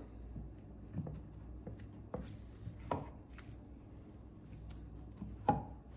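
Trolling motor propeller being handled, slid onto the motor shaft and seated over the drive pin: a few light knocks and clicks, the sharpest near the end.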